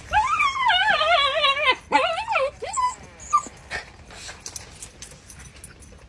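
A dog whining in a long, wavering, high-pitched call, then a second shorter whine and two brief squeaky calls.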